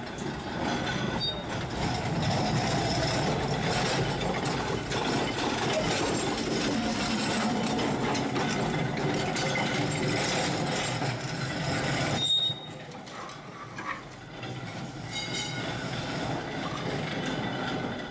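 Vintage electric tram running along its rails, with a steady rumble and rattle of wheels and car body. About twelve seconds in the sound drops suddenly to a quieter rattling with a few clicks as the tram runs slowly.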